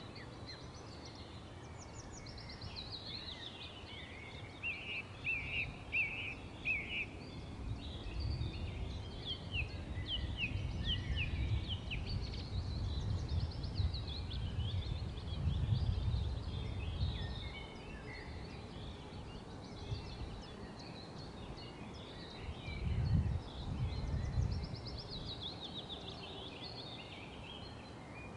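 Birds singing: many quick chirps and trills, some falling in pitch, over a steady hiss, with low rumbling in the middle and briefly again later on.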